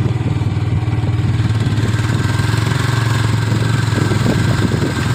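Motorcycle engine running steadily with an even low hum and some light clatter over it.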